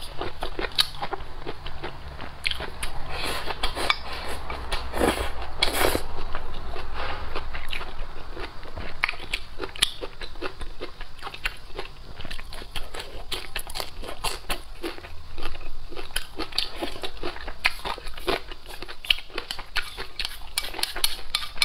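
Close-miked chewing and crunching of a mouthful of small fried fish, green chili and rice, with many quick crackles and clicks.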